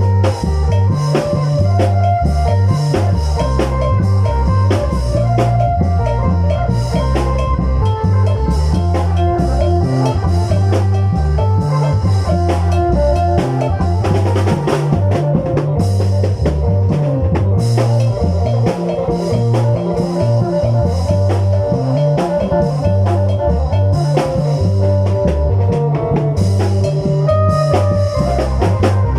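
Isan folk music in lam phloen style: a plucked phin lute plays a busy melody over a steady drum beat and bass.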